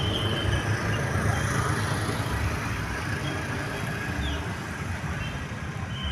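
Bus engine running steadily, with road and traffic noise.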